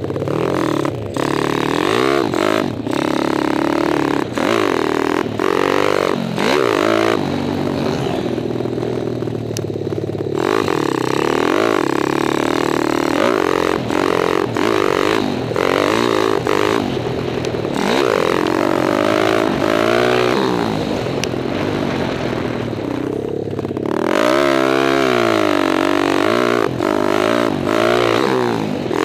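Kawasaki KLX dirt bike with a 177 cc stroker single-cylinder four-stroke engine, revving up and down over and over as it is ridden hard around a dirt track, with a long climb in revs about three-quarters of the way through. Clattering and wind rush ride over the engine sound.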